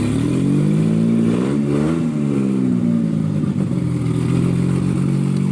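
DeLorean DMC-12's PRV V6 engine running, with a short rev that rises and falls about two seconds in, then settling back to a steady run.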